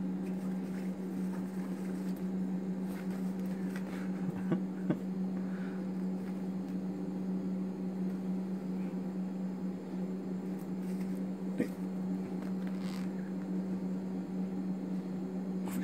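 Steady low electrical hum throughout, with a few faint soft knocks and rustles as a kitten and a hand scuffle in a fabric vest.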